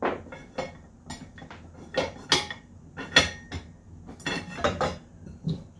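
Steel slide bar being worked into the tube of an all-metal pinball playfield rotisserie frame: a string of sharp metal clanks and knocks, the loudest about two and three seconds in and a quick run of them a little past four seconds.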